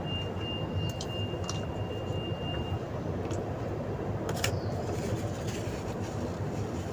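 Steady low rumbling background noise with a faint high steady tone that stops about three seconds in, and a few light clicks and taps as a plastic food tray and spoon are handled during eating.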